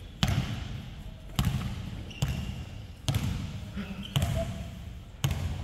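A basketball dribbled on a hardwood court, six bounces at about one a second. Each bounce is a sharp smack with a deep boom that hangs on briefly.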